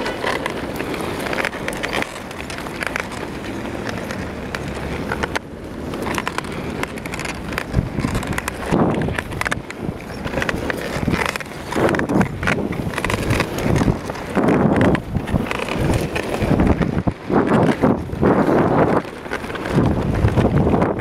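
Mountainboard wheels rolling over a cracked asphalt path, a continuous rough rumble, with wind buffeting the microphone in irregular gusts.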